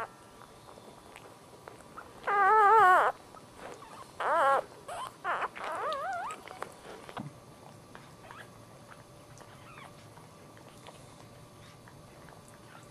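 Newborn dachshund puppy squealing: one high, wavering cry about a second long, then several shorter cries.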